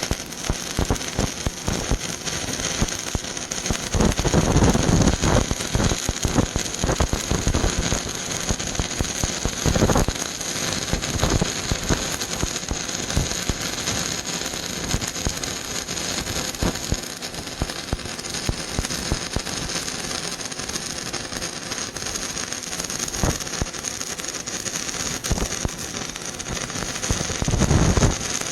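Stick-welding arc burning on rusted steel pipe with a 3/32-inch rod at 75 amps: a continuous crackle and sputter. There are heavier, deeper bursts about four seconds in, around ten seconds in, and near the end.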